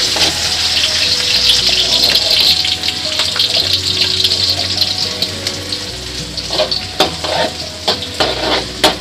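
Sliced onions sizzling in hot cooking oil in a pan. The hiss eases off in the second half, and a few sharp clicks come near the end as the onions are stirred.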